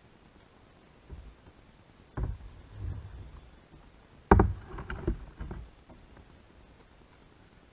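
Knocks and thumps on a kayak, about half a dozen in a few seconds, the loudest about four seconds in.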